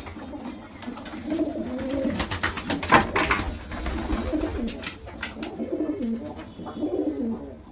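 An agitated baby pigeon calling: a string of low, rising-and-falling coo-like calls, with scattered clicks and rustles that are loudest about three seconds in.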